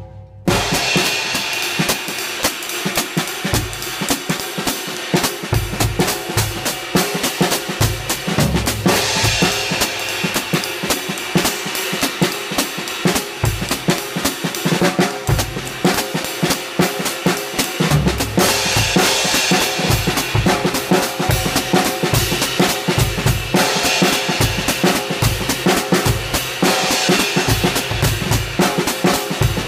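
A drum kit played as a continuous groove: bass drum and snare under Spizzichino handmade cymbals and Matt Bettis hi-hats. The playing starts about half a second in, and the cymbal wash swells louder several times.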